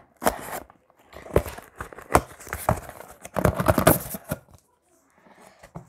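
A cardboard parcel and its plastic wrapping being cut and torn open by hand: irregular ripping and crinkling with a few sharp clicks, stopping about four and a half seconds in.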